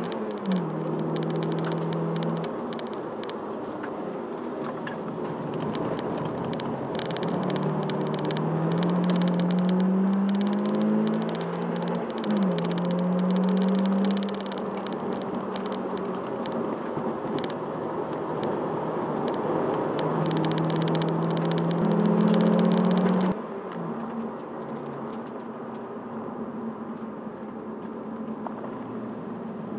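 Toyota Celica's engine heard from inside the car at speed, pulling hard with its pitch climbing and then dropping several times as it shifts gear and lifts off, over steady road and wind noise. About 23 seconds in, the engine note drops and quietens sharply as the driver comes off the throttle.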